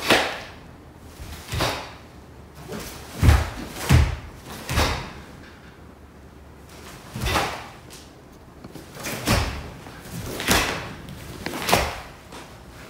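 Karate gi snapping and bare feet thudding on a wooden floor as each technique of the Heian Nidan kata is thrown: about nine sharp snaps at irregular spacing. Two of them, a little past three and four seconds in, carry a heavier low thud.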